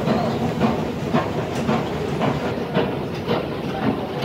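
Kajang Line MRT train running on the rails: a steady rumble and hiss of wheels on track, with clicks about twice a second.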